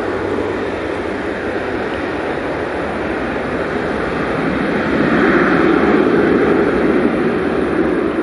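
Jet airliner's engines at takeoff thrust, a loud steady rush that swells about five seconds in.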